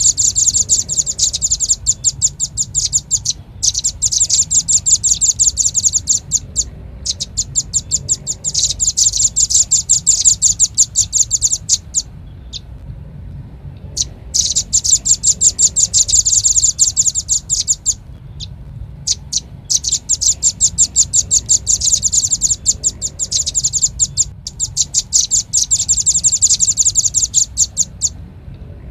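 Velvet-fronted nuthatch (red-billed nuthatch) calling in fast, sharp, high trills of many rapid notes, in bouts of a few seconds separated by short pauses, played as a bird-lure recording.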